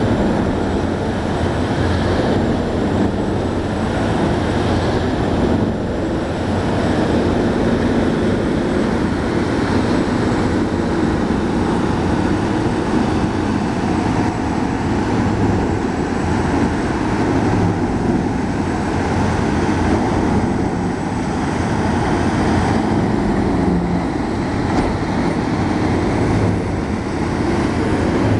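Diamond Z wood waste grinder with its Caterpillar 3412 diesel running under load as logs and brush are fed in and ground. The result is a loud, continuous drone of heavy machinery that holds steady throughout.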